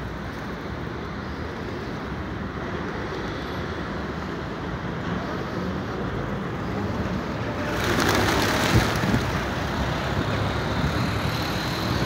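Steady hum of city traffic. About eight seconds in, a loud rush of rapid clattering lasts a second or so, a flock of feral pigeons' wings beating as it takes off.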